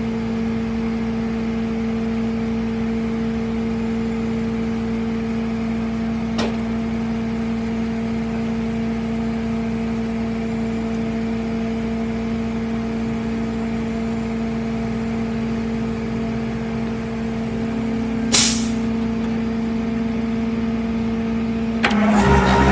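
Steady mechanical drone of a vehicle running at an even pace, with a single click about six seconds in and a brief burst of air hiss near the end.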